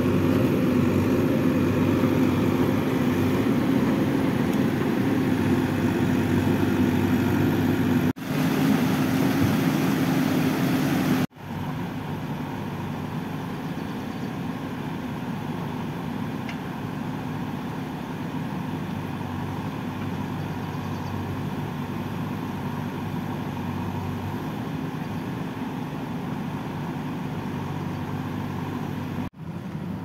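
JCB backhoe loader's diesel engine running steadily. The sound breaks off abruptly about eight seconds in, again about eleven seconds in and just before the end, and the engine is quieter after the second break.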